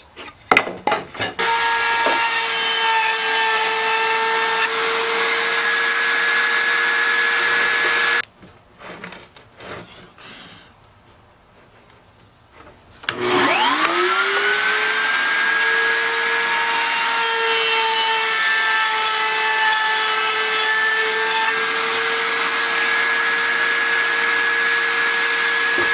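Router in a router table running at full speed with a steady high whine, cutting grooves along a red cedar test board. It stops about eight seconds in. About thirteen seconds in it is switched on again, its whine rising as it spins up, then running steadily.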